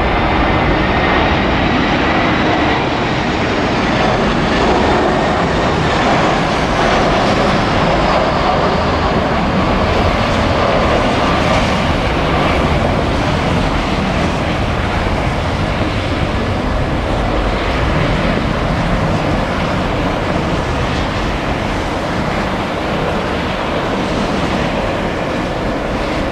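Airbus airliner's jet engines on landing approach passing close by: a loud, steady jet rush with a faint whine that slides down in pitch over the first several seconds, easing slightly near the end. Gusty wind on the microphone adds a low rumble.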